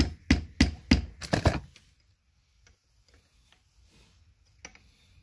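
A steel screwdriver tapping sharply against the aluminium case of a Hydro-Gear ZT-2800 transmission, about seven quick strikes in the first second and a half, then only faint ticks. The screwdriver is being worked into the gasket seam to wedge the case halves apart.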